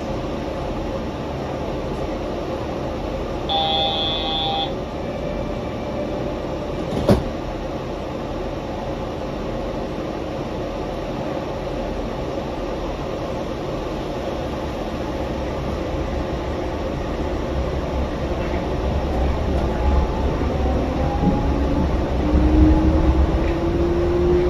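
Yurikamome rubber-tyred automated guideway train running, a steady rumble heard from inside the car. A brief electronic tone sounds about four seconds in and a sharp click near seven seconds. Over the last few seconds the motor whine rises in pitch and the rumble grows louder as the train speeds up.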